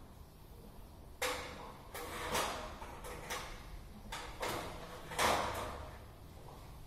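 Hydraulic ram pump's waste valve clacking shut in a series of about seven sharp knocks, unevenly spaced, each followed by a brief rush.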